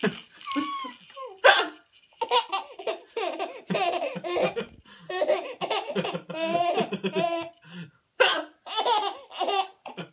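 A four-month-old baby laughing in repeated bouts, with short pauses between them. An adult hiccups sharply about a second and a half in.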